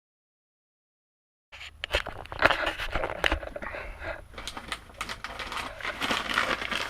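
After about a second and a half of dead silence, crinkling, rustling and clicking starts up: packaging being handled, in keeping with a packet of Crispies being brought out to show.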